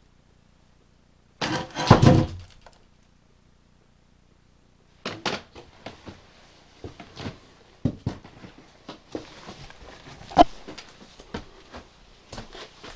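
Footsteps on old wooden stairs and floor littered with debris: a loud thump about two seconds in, then, after a pause of a few seconds, a run of irregular knocks, thuds and scuffs.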